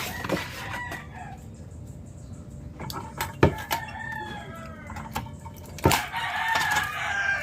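A rooster crowing about three times, the last call the loudest, with two sharp knocks in between.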